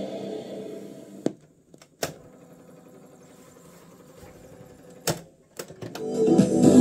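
Music playing through the Sharp GF-382 boombox fades away, then several sharp mechanical clicks as its cassette deck keys are pressed: single clicks about a second in, at two seconds and at five seconds, and a quick few more just after. Music starts playing again near the end.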